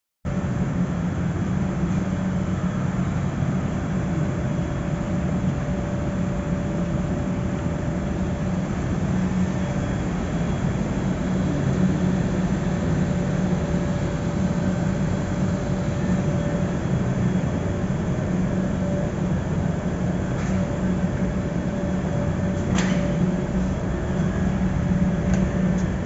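Chilled-water plant machinery, chillers and pumps, running steadily: a continuous low hum with a faint steady tone above it and a brief click near the end.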